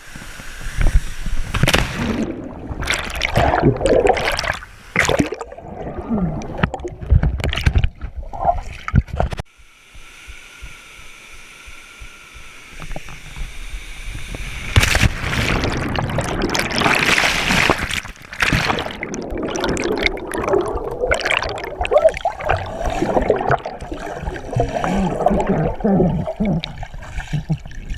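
Water splashing and sloshing close to the microphone in irregular loud bursts, with a quieter gurgling stretch of a few seconds near the middle.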